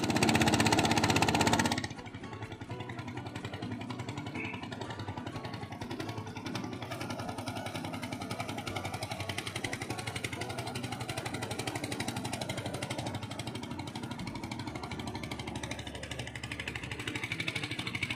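Motorcycle engine running as the rider sets off, louder for about the first two seconds and then settling to a steady, even running sound.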